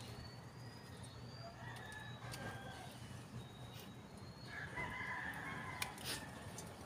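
A rooster crowing from about two-thirds of the way through, with high bird chirps before it. A few sharp clicks of hand pruning shears snipping bonsai twigs.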